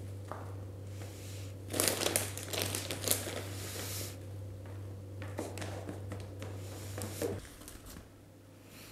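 Crinkling of a sack of horticultural peat and the rustle of dry peat as a gloved hand scoops handfuls from it into a plastic tub, in two bursts of about two seconds each.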